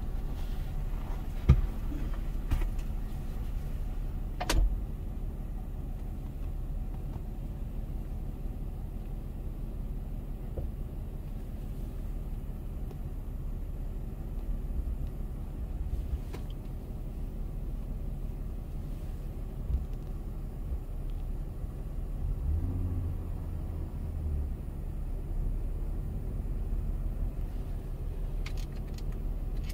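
A car idling steadily, heard from inside the cabin as a low rumble. A couple of sharp knocks come in the first five seconds, and a brief deeper hum sounds about three-quarters of the way through.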